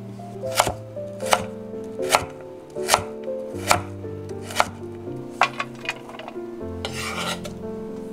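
A kitchen knife slicing a carrot into sticks on a wooden cutting board, knocking against the board about once every 0.8 seconds. A brief rustle comes near the end.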